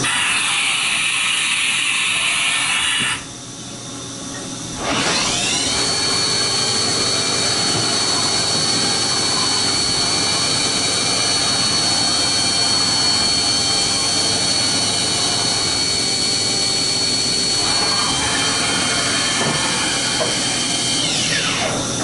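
1997 Haas VF-2 CNC vertical mill running: after a noisy stretch and a brief quieter pause, the spindle spins up about five seconds in with a rising whine. It holds a steady high whine, drops to a lower pitch later on, and winds down near the end, with the table traversing under it.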